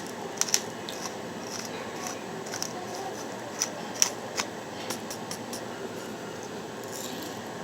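Salt and pepper grinder grinding, giving irregular crunchy clicks and crackles that thin out near the end.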